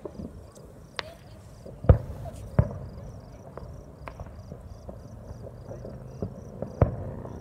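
Distant fireworks going off as scattered sharp bangs, the loudest about two seconds in, another just after and one near the end. Under them, crickets chirp in a steady, even rhythm.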